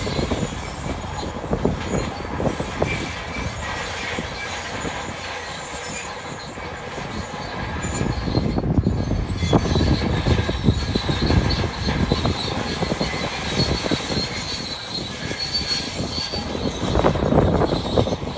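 Bulldozer working: diesel engine running under load with its steel tracks clanking and squealing, growing louder about halfway through and again near the end.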